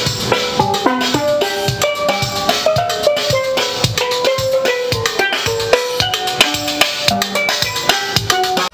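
Steel pan (steel drum) struck with rubber-tipped mallets, playing a quick melody of short, ringing notes.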